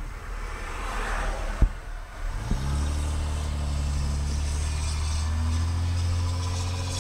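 Two sharp bangs, fireworks going off, then from about two and a half seconds in a truck engine running close by with a steady low rumble.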